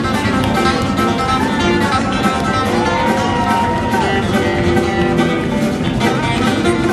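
A live jamgrass band playing, with plucked acoustic guitar and banjo to the fore, and one long bent note held for about a second near the middle.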